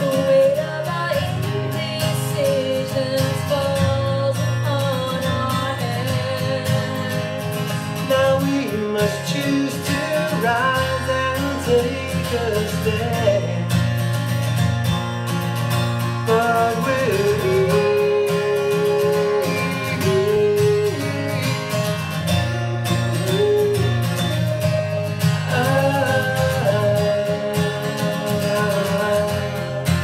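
A song played on a strummed acoustic guitar, with a man singing and a woman singing with him at times.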